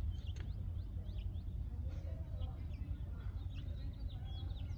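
Several birds chirping in short, quick, downward-sweeping notes that come thicker and faster in the second half. Underneath runs a steady low rumble.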